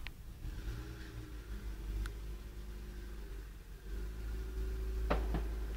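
Low rumble of distant road traffic, growing a little louder about four seconds in. About five seconds in, two short sharp cracks come close together.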